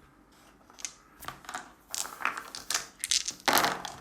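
A handful of dice shaken and rolled onto a tabletop, in several bursts of rattling clicks, the loudest clatter near the end: rolling to resolve attacks in a tabletop wargame.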